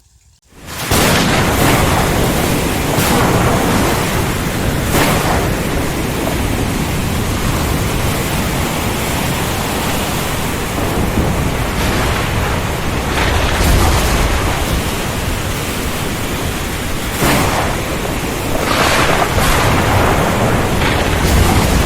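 Heavy rain pouring hard, cutting in abruptly at full strength less than a second in, then a dense steady downpour with brief swells every few seconds.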